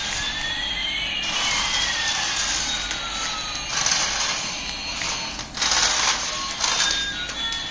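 Electronic sound effects from a battery-powered toy: a loud hiss with two tones gliding through it, one rising and one falling so that they cross, followed by short surges of hiss.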